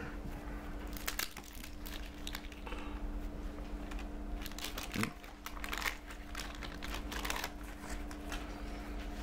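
Trading-card stickers being shuffled and handled, with irregular quick clicks of card edges and the crinkle of paper pack wrappers, over a faint steady hum.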